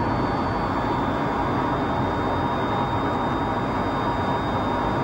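Steady jet airliner cockpit noise played by a flight simulator's sound system: an even engine and airflow rush with a thin, faint high whine over it.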